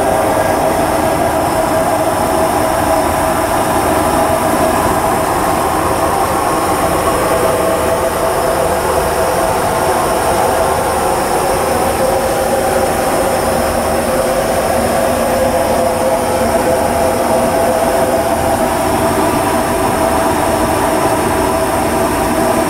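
Cabin noise inside an Airbus A330-300 airliner in flight: a steady, loud rush of jet engines and airflow with a constant engine drone.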